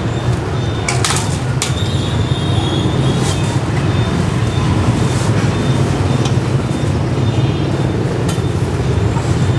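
Steady low rumble of street traffic, with a few short sharp knocks scattered through it.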